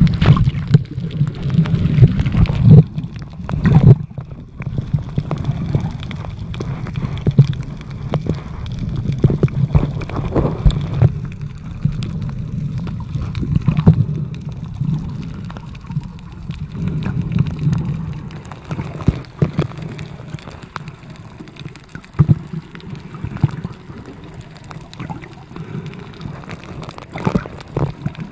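Muffled water noise heard through a camera held below the surface: an uneven low rumble of moving water, with scattered clicks and knocks.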